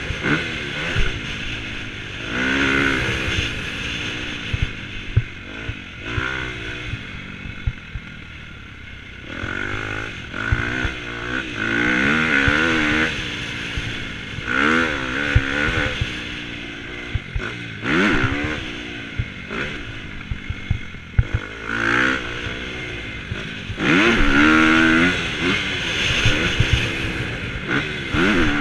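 Dirt bike engine revving up and down again and again as the rider works the throttle and gears, heard from a helmet-mounted camera, with frequent knocks and clatter from the bike over the track's bumps.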